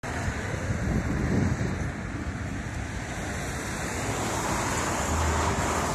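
Wind blowing across a phone's microphone: a steady rushing noise with a heavy low rumble.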